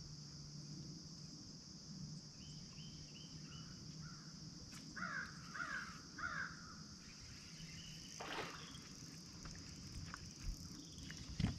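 Steady, high-pitched insect chorus over a calm lake, with a bird giving three harsh caws about five seconds in. A few sharp knocks follow near the end.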